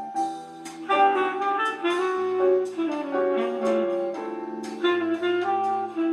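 Jazz recording playing, a saxophone carrying a wavering melody over a walking bass line and light percussion.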